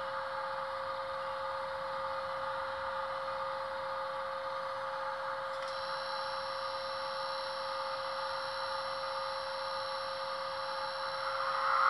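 Sound decoder in a model E403 electric locomotive playing the stationary locomotive's idle sound through its small speaker: a steady hum with a constant tone and a hiss. About six seconds in, a higher, thin whine joins abruptly.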